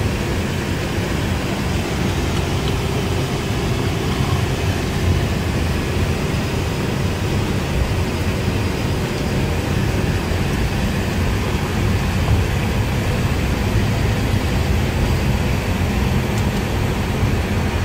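Cockpit noise of an ATR 72-600 turboprop airliner rolling along the runway on its landing roll: a steady, loud rumble of its twin Pratt & Whitney PW127 turboprop engines and propellers, heard from inside the flight deck.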